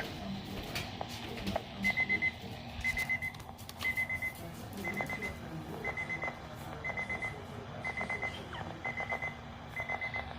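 Weather radio alert alarm beeping: quick groups of four high beeps repeating about once a second, starting about two seconds in.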